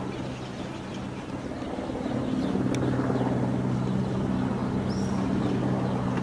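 Mil Mi-8-family military helicopter flying low overhead: a steady drone from its turbines with the fast, even chop of its rotor blades, growing louder about two seconds in.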